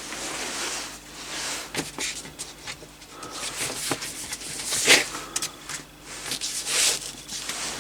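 Paper instruction sheet being handled and turned, rustling in a run of swishes and light clicks, loudest about five and seven seconds in.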